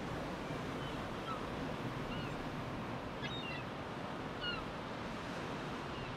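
Steady wash of ocean surf, with several short, high bird chirps scattered through it.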